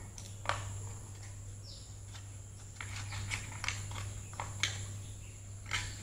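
Light, irregular taps and knocks of a brush handle on a wooden cutting board as modelling clay is rolled out thin, about eight of them over a few seconds.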